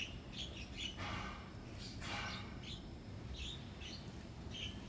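Small birds chirping: short, high chirps repeated every half second or so, with a couple of brief soft rustling swishes about one and two seconds in.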